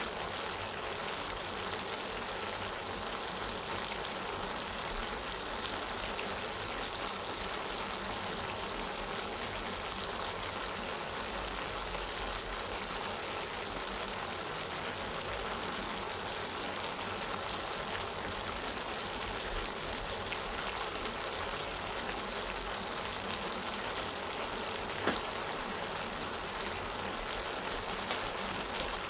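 Sautéed cabbage, carrots and chicken sizzling steadily in a steel pan on the stove, with one brief click late on.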